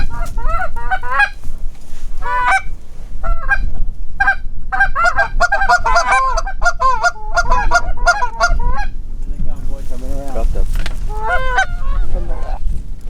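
Canada goose honks and clucks, many overlapping: scattered at first, a dense flurry through the middle, a brief lull, then more calls near the end. A low rumble of wind on the microphone runs underneath.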